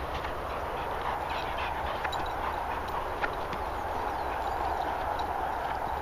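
Dogs panting hard close by, with footsteps swishing through grass and a few light clicks.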